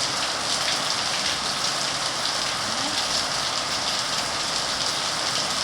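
Steady rain falling in a backyard, a continuous hiss with scattered patter of drops hitting surfaces.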